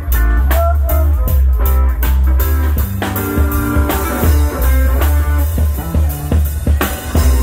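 Live rock band playing: electric guitars over a drum kit, with a heavy, steady low end.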